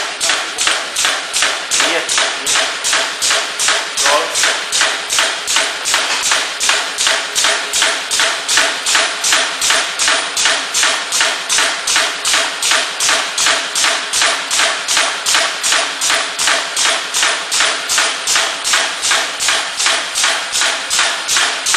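Eccentric punching press for band-saw blades running automatically, striking steadily at about four strokes a second as it punches teeth into the steel blade strip fed by its air feed.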